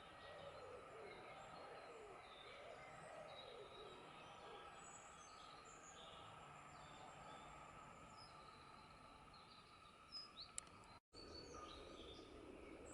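Faint outdoor background: small birds chirping here and there over a steady hum, with a few light clicks and a momentary cut in the sound near the end.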